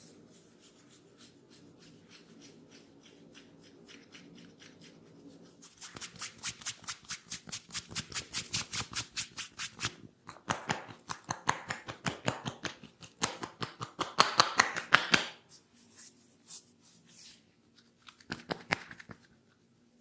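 Hands working during an ASMR head massage: fast, even clicks at about five a second for about four seconds, then a louder, quicker run of slaps and taps, then a few scattered taps near the end.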